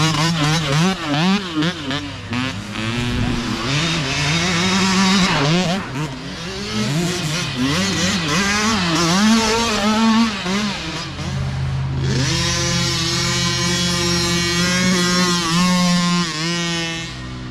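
Mini dirt bike engines revving up and down as riders pass on the trail, the pitch climbing and dropping with each throttle change. From about twelve seconds one engine holds a steady high pitch, with a brief dip near the end.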